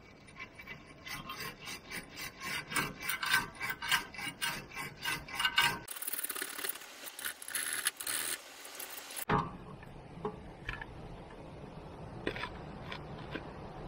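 Hand wire brush scrubbing rust out of a car's steel wheel-bearing seat, in quick back-and-forth scratchy strokes of about four a second. After about six seconds the scrubbing turns hissier, then falls to fainter, scattered scrapes.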